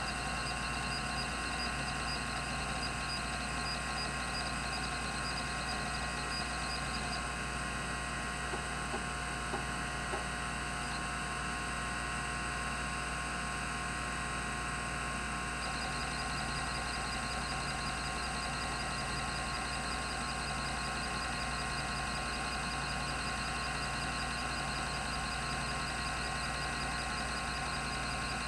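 Rodime RO352 3.5-inch hard drive running, its 3600 rpm spindle giving a steady whine with several pitches. A faint, rapid, high ticking runs over it, stops about seven seconds in and comes back about halfway through.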